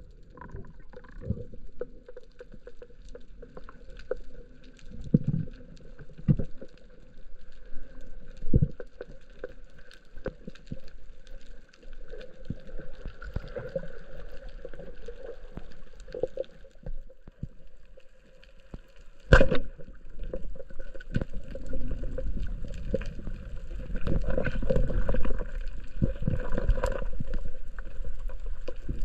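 Underwater sound heard through a diving camera's housing: muffled water noise with scattered clicks and knocks. About two-thirds of the way through comes one sharp, loud crack, a speargun firing. The water noise grows louder and churning in the last several seconds.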